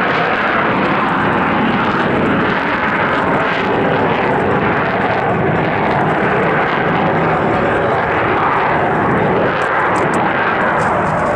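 F-35B Lightning II's F135 jet engine running loud and steady, an unbroken rushing noise with no let-up.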